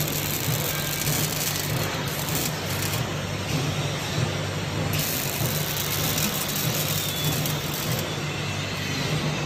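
Steady din of a robotic arc-welding workshop: a constant low hum under an even hiss, with no break.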